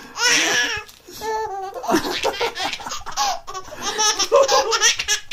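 Baby laughing in repeated bursts of belly laughter, with a brief pause about a second in.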